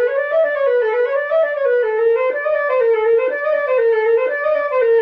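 Concert flute played solo: one unbroken phrase of notes stepping up and down in its lower-middle range.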